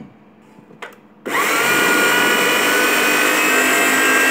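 Small electric food processor grinding cooked shrimp with red curry paste into a thick paste. Two short clicks come first, then a little over a second in the motor starts. Its whine rises quickly in pitch and then runs loud and steady.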